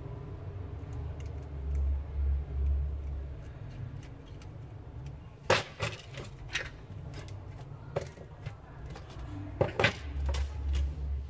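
Small clicks and taps of a screwdriver and phone parts being handled on a workbench. A few sharper clicks come about halfway through and again near the end, with dull low bumps in between.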